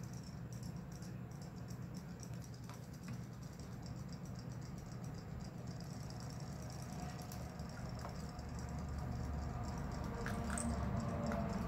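Battery-powered robotic fish toys swimming in a plastic basin of water, their tails flicking in a fast, steady patter of small clicks and splashes. It grows a little louder near the end, with a few sharper clicks.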